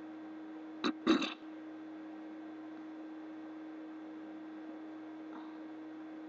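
A single hiccup about a second in, one of a persistent bout: a short catch and then a louder 'hic'. A steady low hum runs underneath.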